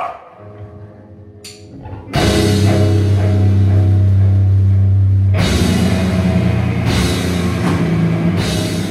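Live metal band starting a song. A couple of seconds of quiet held notes, then the full band comes in loud with distorted guitars and a drum kit.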